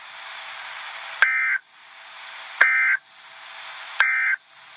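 Emergency Alert System digital data tones from NOAA Weather Radio: three short warbling bursts about 1.4 s apart, over steady radio hiss. This is the end-of-message code that closes an EAS alert.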